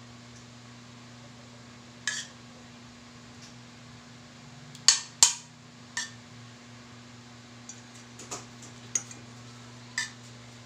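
A spoon clinking against a metal pan and a ceramic plate as béchamel sauce is spooned out and served: a handful of sharp taps, the loudest two close together about five seconds in, over a steady low hum.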